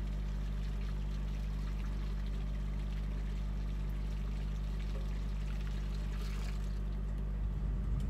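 Hot water poured from a tea kettle through a funnel into a hanging solar shower bag, a steady trickling stream, over a steady low hum that starts to pulse near the end.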